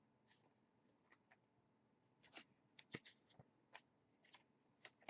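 Faint, scattered rustles and light clicks of trading cards being handled and slid against each other, with a sharper click near the end.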